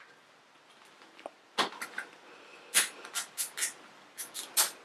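Crinkly plastic toy packaging being handled and pulled at: quiet for about a second and a half, then a string of short, sharp crackles.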